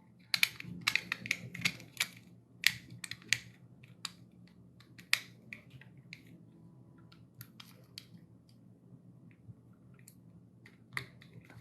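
Hands working with painter's tape and small wired parts at a bench: a quick run of crisp clicks and crinkles that grows sparse after a few seconds, over a faint steady hum.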